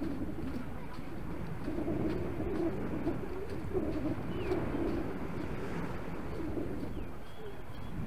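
Beach ambience: a steady wash of wind and surf, with a pigeon cooing in low repeated phrases through the middle. A couple of faint, short high bird chirps come in the second half.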